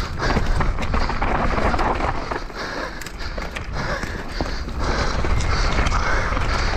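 Mountain bike descending fast on a dirt trail: tyres rolling and skidding over the dirt, with constant clattering of the chain and frame over bumps and wind buffeting the helmet-mounted microphone.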